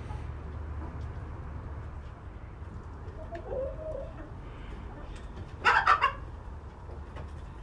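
Chicken squawking in a short, loud burst a little past halfway, after a softer cluck about three seconds in, while being chased to be caught. A steady low rumble runs underneath.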